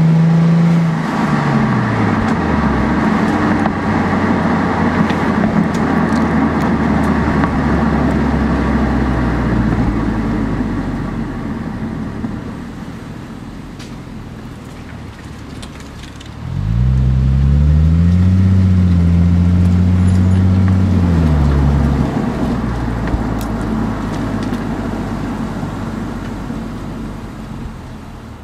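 2006 Lexus IS250's V6 heard at the tailpipe through a Greddy SE cat-back exhaust while driving. The engine note drops as the throttle comes off about a second in, then settles into exhaust and road noise that fades to a quieter cruise. Just past the middle it accelerates again, the pitch rising and holding for a few seconds before falling away as it lets off.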